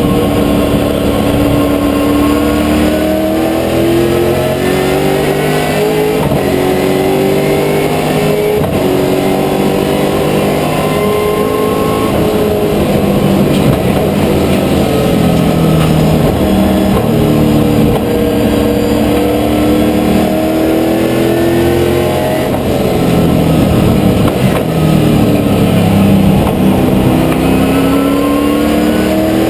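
Holden Commodore VZ V8 Supercar's V8 engine at racing speed, heard from inside the cockpit: its pitch climbs through each gear and drops at the shifts and under braking, over and over.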